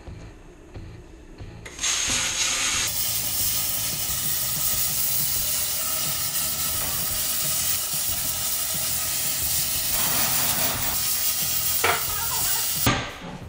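Handheld plasma cutter hissing steadily as it cuts through the steel wall of an old air tank. It starts about two seconds in and cuts off shortly before the end.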